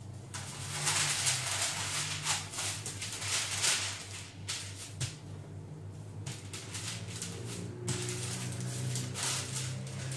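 Baking paper rustling and crinkling under a wooden rolling pin as shortcrust pastry is rolled out between two sheets. It comes in repeated strokes with short pauses, one about four seconds in and another near eight seconds.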